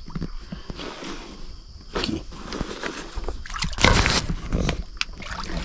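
Rummaging through bags and gear: irregular rustling, knocks and clicks of objects being moved and handled close to the microphone, with a louder scuffle about four seconds in.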